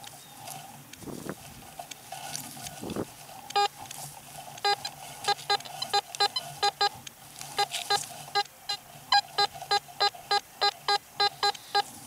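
Fisher F75 metal detector giving a faint steady hum. From about three and a half seconds in it sounds a long run of short beeps at about three a second as the coil is swept over the grass.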